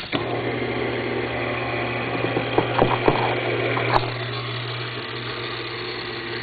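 Electric linear actuator motor running steadily with a low hum as it drives the hydraulic drawbar cylinder of a mini mill. A few light knocks come about halfway through.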